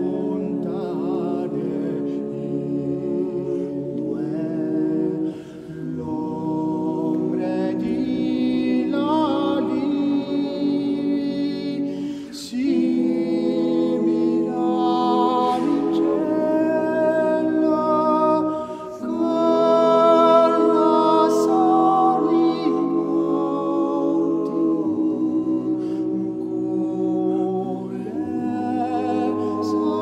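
Unaccompanied choral singing on the soundtrack: several voices hold long chords that shift every few seconds, with short breaks between phrases.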